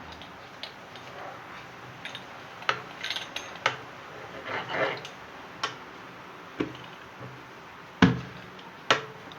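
Scattered knocks and taps of a cutting tool on a work surface as a ball of dough is cut into four pieces, with a louder low thump about eight seconds in.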